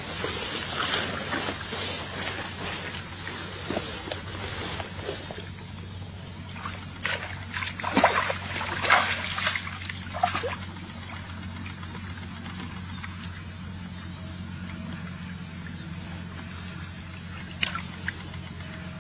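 Shallow pond water splashing and sloshing as a woven bamboo fish trap is worked into the mud by hand, in irregular bursts, with a run of louder splashes about seven to ten seconds in and one sharp splash near the end.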